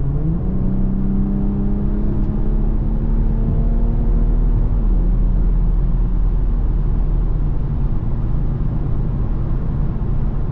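Infiniti Q50's turbocharged engine pulling under throttle: its pitch rises in the first half-second, holds steady, then drops a step about five seconds in and settles to a steady cruise. A low, steady rumble runs underneath.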